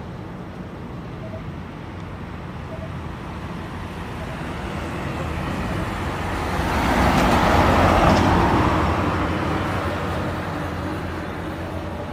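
A motor vehicle drives past on the street, its engine and tyre noise swelling to a peak about eight seconds in and then fading away.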